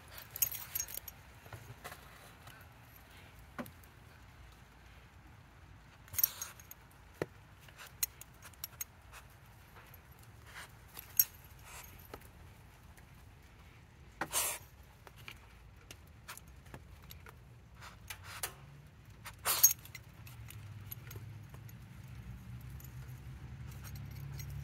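Metal tags and ring on a Boston Terrier's collar jingling in short bursts every few seconds as the dog noses at the ground. A low rumble builds near the end.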